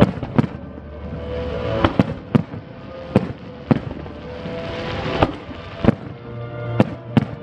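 Fireworks bursting overhead: about a dozen sharp bangs at irregular intervals, some in quick pairs, with music playing underneath.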